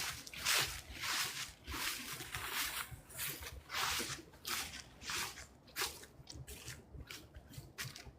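Footsteps crunching through dry fallen leaves at a steady walking pace, about three steps every two seconds, growing softer in the last couple of seconds.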